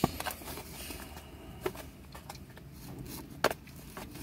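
Hands handling a cardboard product box: scattered short taps and clicks over a low steady rumble, the sharpest click about three and a half seconds in.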